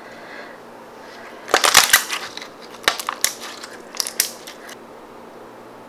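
Blue glittery putty slime being scrunched and squeezed by hand as the thin film of a blown slime bubble is balled back up: a dense run of crackling, squelching pops about a second and a half in, then a few scattered single crackles.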